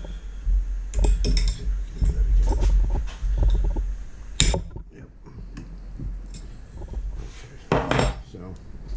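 Socket ratchet clicking in short runs as bolts are backed out of a hydraulic pump's charge pump cover, with metal-on-metal clinks. Near the end a metal tool clatters down on the workbench.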